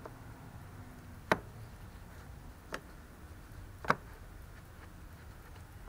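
Three short sharp clicks, about a second and a half apart, the middle one fainter, from fingers tapping and handling the frame of a new cabin air filter.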